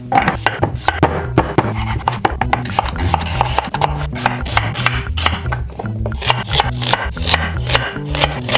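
A chef's knife chopping sweet potato and carrots into chunks on a wooden cutting board: a quick, irregular run of blade strikes against the board, over background music with a bass line.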